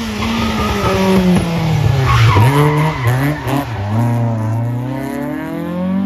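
Classic Ford Escort rally car's engine revving down and blipping as it brakes into a tight turn, then accelerating hard out of it, its note rising steadily over the last couple of seconds.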